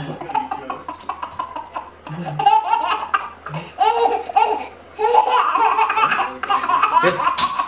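A baby laughing hard, in three runs of repeated laughs with short pauses between them.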